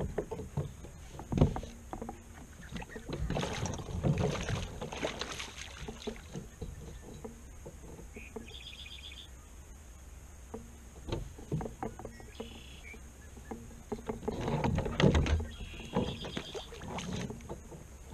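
Irregular knocks, bumps and rattles of fishing gear being handled against a plastic fishing kayak's hull: one cluster a few seconds in and another near the end, when a hooked fish splashes beside the boat.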